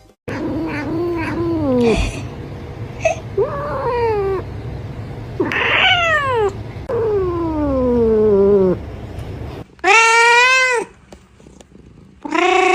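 A domestic cat meowing repeatedly: about six drawn-out meows, several sliding down in pitch, the longest about two seconds. A higher, wavering meow comes near the end.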